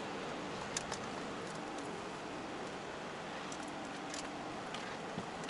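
Steady engine and road noise inside the cab of a 5-ton wing-body truck moving slowly, with a few faint sharp clicks.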